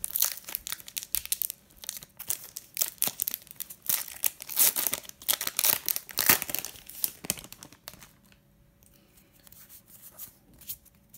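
Foil wrapper of a Pokémon TCG booster pack being torn open and crinkled in the hands: dense crackling for about eight seconds. It then drops to faint rustles and clicks as the cards are slid out and handled.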